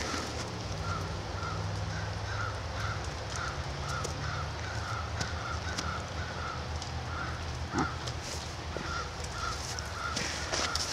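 Newfoundland dog panting quickly and evenly, about three breaths a second, close to the microphone, with a single knock about two thirds of the way through.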